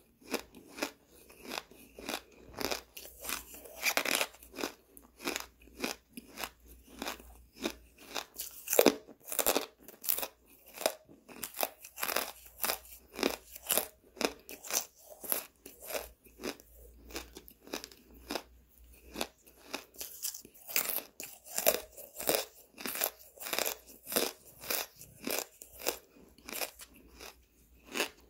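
Soft charcoal being crunched and chewed right at the microphone, a steady run of crisp crunches about two a second.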